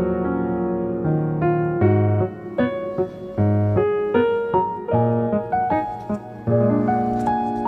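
Background music: a light piano melody over a bass line, its notes changing about twice a second.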